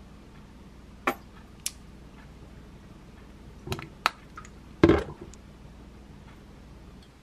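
Kitchen handling sounds on a countertop: a few sharp clicks and taps of containers and utensils, then a heavier knock about five seconds in as the wooden salad bowl is taken hold of and moved. A low steady hum runs underneath.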